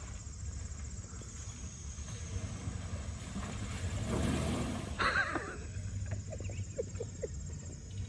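Dodge Ram pickup's engine running and revving as the truck drives into a mud hole and gets stuck, with a louder surge about four seconds in.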